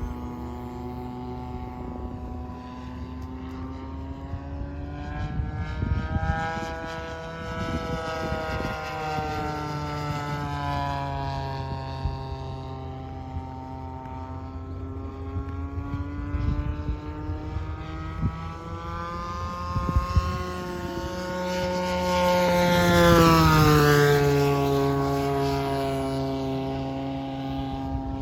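The 35cc gasoline two-stroke engine of a 2200 mm radio-controlled airplane running in flight. Its pitch rises and falls as the plane manoeuvres, and it grows loudest in a close pass near the end, where the pitch drops as it flies by.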